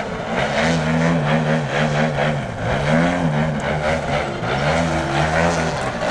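Radio-controlled aerobatic model airplane's engine and propeller running while the plane hangs nose-up in a hover. Its pitch rises and falls every second or so as the throttle is worked to hold the hover.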